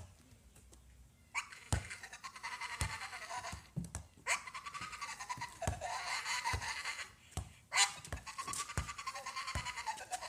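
Pit bull-type dog making three long, wavering cries, each a few seconds long with short breaks between them.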